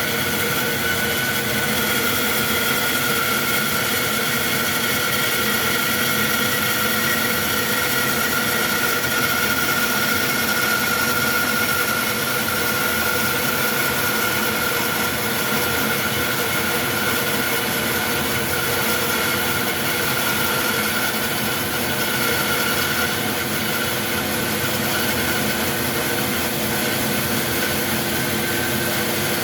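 Powermatic bandsaw running and resawing a board of oak: a steady motor-and-blade hum with a high whine that wavers slightly in pitch as the blade cuts.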